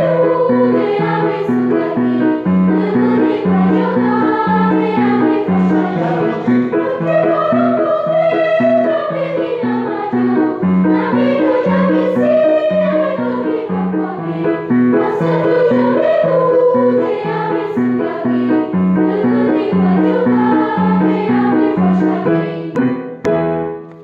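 A traditional Ñhañhu (Otomí) folk song, sung over a steady accompaniment whose low notes step back and forth in a regular beat. The music drops away shortly before the end.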